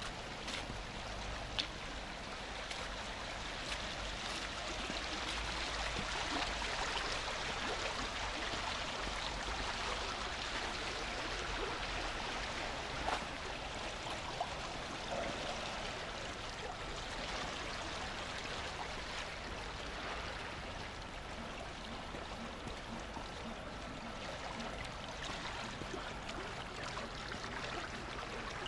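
Shallow water running along a concrete drainage canal: a steady rushing hiss that swells a little in the middle, with a low rumble beneath and a few sharp clicks.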